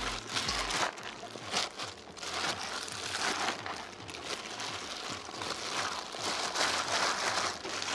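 Thin plastic food-prep gloves crinkling and rustling as gloved hands toss and squeeze salted cabbage with kimchi seasoning in a stainless steel bowl: a continuous, irregular rustle.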